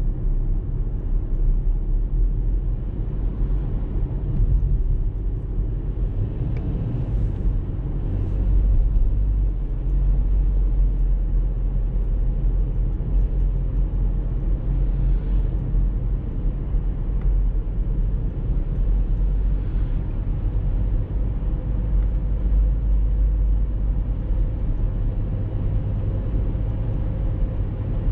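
Car driving along a road at a steady speed: a steady low rumble of engine and tyre noise.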